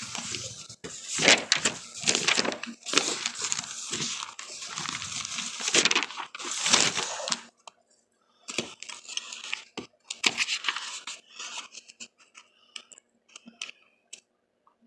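Crackling, hissing static in irregular bursts. It stops for about a second near the middle, then comes back as sparser, scattered crackles toward the end.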